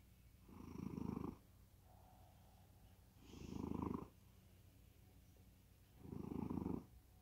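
Cat in deep sleep snoring: a low rumble on each breath, three rumbles about three seconds apart.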